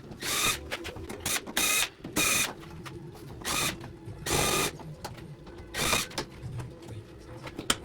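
Cordless screwdriver whirring in about seven short bursts, each under half a second, as it backs out the screws holding a dishwasher's side panel.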